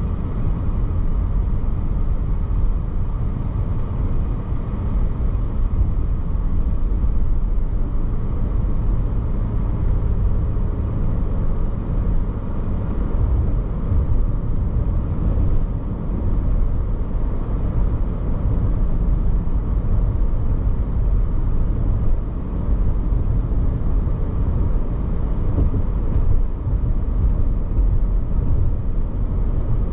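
Steady road noise and engine hum of a car driving at around 30 mph, heard from inside the cabin.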